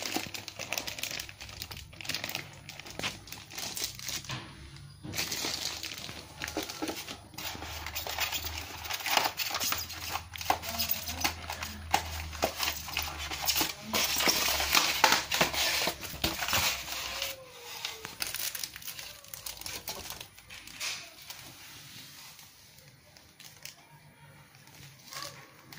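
Plastic packaging crinkling and rustling as items are unwrapped and handled, with scattered small clicks and taps. The handling thins out over the last few seconds.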